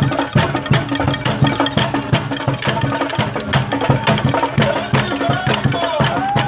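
Bamboo percussion: wooden sticks beating a fast, steady rhythm on the tuned bamboo tubes of a frame instrument, the strikes giving low hollow notes. A wavering high gliding tone comes in over it in the second half.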